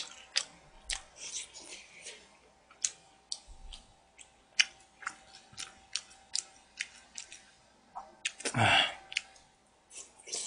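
A person eating close to the microphone: wet chewing and smacking of spicy braised chicken and rice, with small clicks of chopsticks against a plastic bowl, and one longer, louder sound about eight and a half seconds in.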